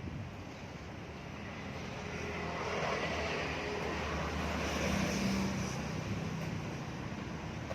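A motor vehicle passing: a steady engine and road noise that builds to its loudest about five seconds in, then eases off.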